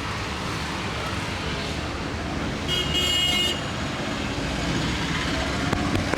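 Street traffic noise, with a vehicle horn sounding once for most of a second about three seconds in.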